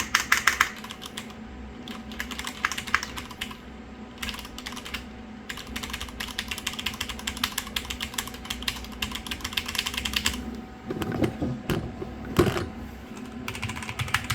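Typing on mechanical keyboards with tactile brown switches (Cherry MX Brown and Logitech GX Brown): rapid runs of key clacks broken by short pauses, with a few duller knocks near the end.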